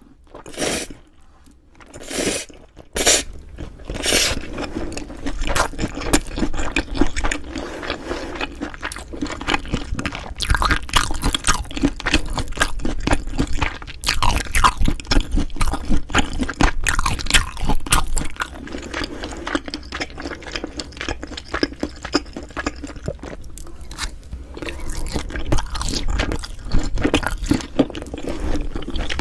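Close-miked eating sounds: chewing and crunching. A few separate sharp crunches in the first few seconds, then steady, dense chewing with many small wet clicks.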